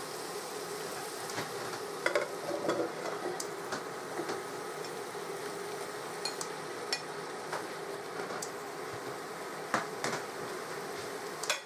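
Onions and celery frying gently in a saucepan, a steady sizzle, with a few short knocks as chunks of carrot, swede and turnip are tipped in on top.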